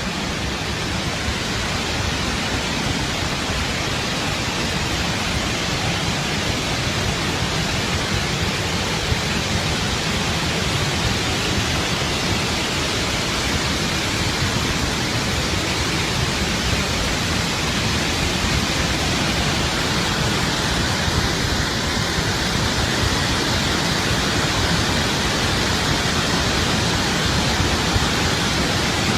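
Steady, loud rush of a huge volume of water pouring out of Tarbela Dam in an emergency discharge.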